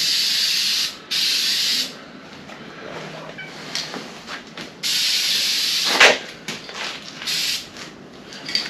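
Short bursts of hiss from an aerosol can of trim and bumper spray paint, about four sprays of up to a second each, with small clicks and handling noises between them.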